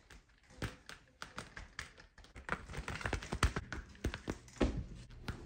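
Bengal cat's claws scratching and gripping a sisal-rope scratching post: irregular scratchy taps and rasps, coming thicker and louder in the second half.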